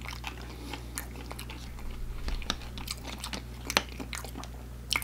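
Close-miked chewing of fried chicken nuggets: irregular wet mouth clicks and soft crunches, with a couple of sharper clicks near the end.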